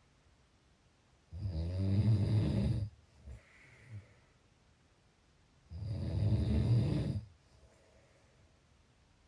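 A person snoring in their sleep: two low, rough snores, each about a second and a half long and some four seconds apart, with a faint breath between them.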